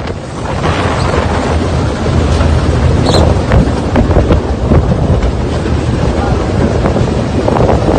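Loud wind buffeting the microphone aboard an aluminum boat underway. A rushing noise sits over a steady low rumble of the boat running across the water.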